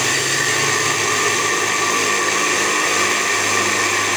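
Small electric grinder running steadily at full speed, grinding roasted sesame seeds into powder.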